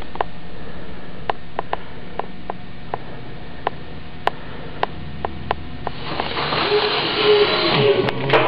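Sharp, irregular ticks and taps over a steady hiss, about twenty of them; from about six seconds in, the background grows louder and busier.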